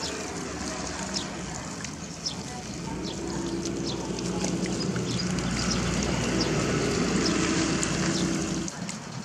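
Water from a garden hose trickling and splashing into a plastic tub, joined from about three seconds in by a steady motor hum that grows louder and cuts off suddenly near the end.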